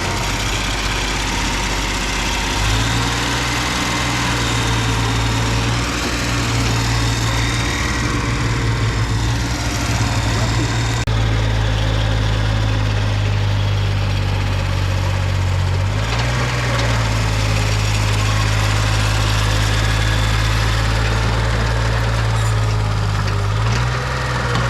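Mini excavator's diesel engine running steadily, its note stepping up and down a few times as the load changes.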